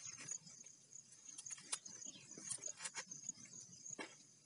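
Insects chirring in a continuous high pulsing chorus, with a few sharp clicks and crinkles of plastic-bottle rope being handled and tied at a bamboo pole.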